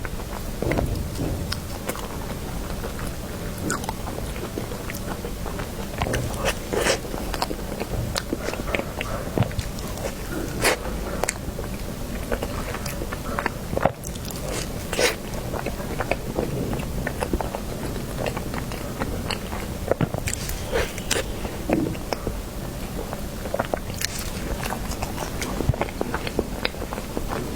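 Close-miked eating sounds: a person biting into and chewing cake, with many irregular sharp mouth clicks and smacks.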